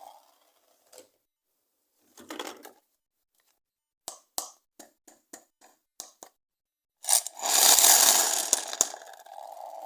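Plastic toy and packaging being handled: a string of about eight sharp plastic clicks, then a loud burst of crinkling and tearing about seven seconds in.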